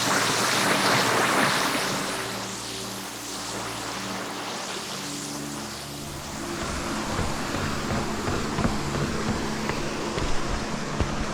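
Rushing stream water fading out over the first two seconds, under soft background music of held notes. From about halfway, an uneven low rumble like wind on the microphone.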